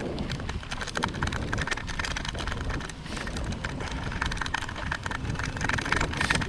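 Wind rushing over the microphone of a camera on a moving bicycle, with steady road and tyre noise and many small rattling clicks from the ride.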